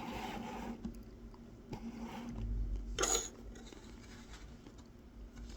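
Tip of a Mora 106 carving knife scoring kolrosing lines into a wooden honey dipper: a short scratchy stroke at the start and a sharper one about three seconds in, with faint light ticks between.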